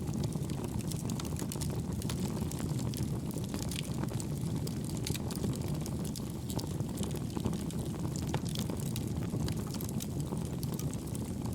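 Wood fire burning in a homemade wood gas stove made from two pail cans: a steady low rush of flame with frequent small, irregular crackles and pops from the burning wood.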